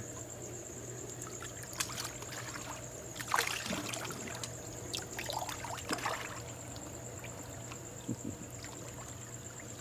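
Water splashing and sloshing as a person steps down into a hot tub and sits in it, loudest about two seconds in and again from about three to six seconds in, over a steady low hum.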